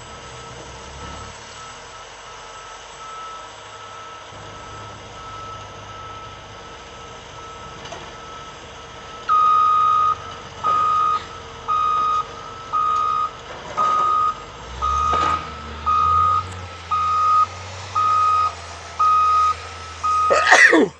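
Backup alarm on heavy equipment beeping about once a second as the machine reverses, starting about nine seconds in, over a running engine that grows louder partway through. A short loud noise near the end.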